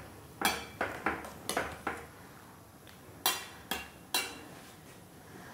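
Stainless steel slotted skimmer clinking against the rim and side of a stainless steel pot while stirring noodles in hot water. There are about five quick clinks in the first two seconds, then three more a second later.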